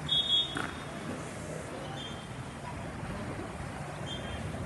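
Steady wash of pool and crowd noise at a water polo game, with a brief high tone just after the start and fainter ones about two and four seconds in.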